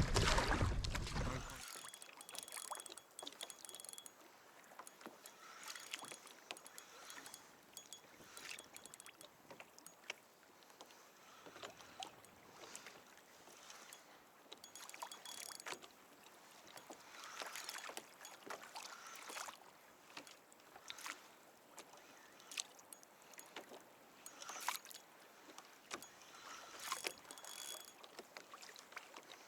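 Kayak paddle strokes: water swishing and dripping off the blades in an irregular rhythm, roughly one stroke every second or two.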